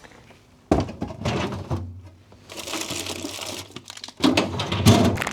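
Workshop tool and metal-part handling noise during bearing work on a two-stroke motorcycle engine's crankcase. A sudden loud clatter comes under a second in, then a steady low hum, and a second loud burst of clatter near the end.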